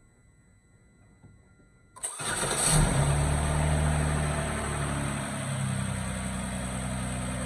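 Hyundai Azera's V6 engine starting about two seconds in, flaring up briefly as it catches, then settling into a steady idle. It runs smoothly after new ignition coils and spark plugs were fitted to cure a misfire on cylinder 5.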